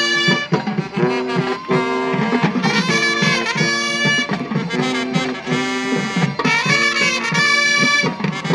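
Marching band playing: brass and saxophones sound sustained chords over a steady drum beat.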